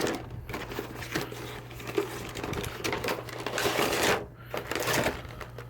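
A cardboard Nendoroid figure box being opened and handled: scraping and rustling of cardboard and plastic packaging with small clicks, louder for a moment between three and five seconds in, over a low steady hum.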